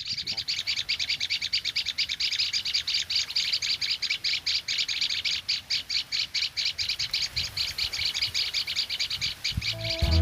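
Reed warbler song: a fast, even run of high chattering notes, about ten a second, without a break.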